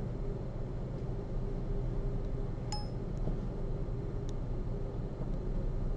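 Steady low room hum, with two light metallic clicks from surgical instruments (needle holder and forceps) as a patch is sutured. The first click, just under 3 s in, rings briefly; the second, a little after 4 s, is fainter.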